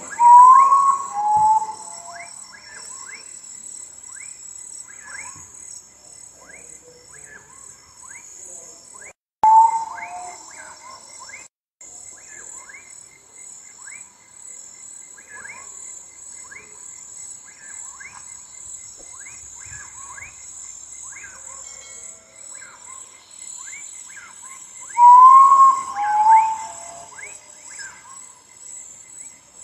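Common potoo (urutau) singing its mournful whistled phrase of a few notes, each lower than the last, three times: at the start, about nine seconds in and about 25 seconds in. Behind it run a steady high buzz of night insects and a constant scatter of short chirps.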